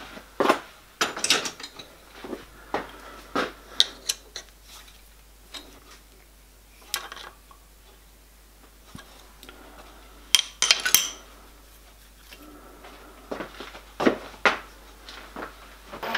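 Irregular metallic clinks and knocks of an adjustable wrench and steel clamps as the clamp nuts on a milling-machine vise setup are tightened, with a cluster of sharper clanks a little past the middle.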